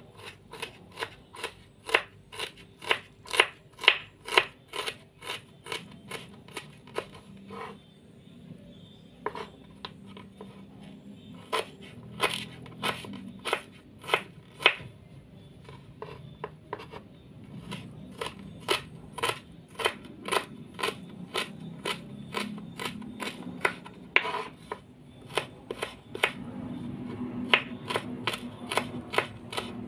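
Kitchen knife mincing ginger on a wooden cutting board: quick sharp strikes of the blade against the wood, in runs of about two or three a second, with a sparser stretch of a few seconds about a third of the way through.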